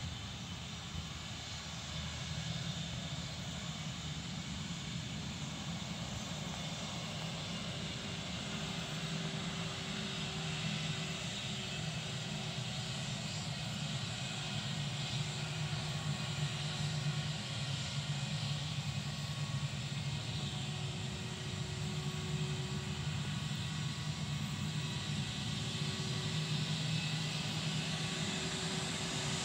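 Airbus A320-232's IAE V2500 jet engines running at low thrust as the airliner rolls out after landing and taxis: a steady rumble with a faint whine, growing slowly louder as it comes nearer.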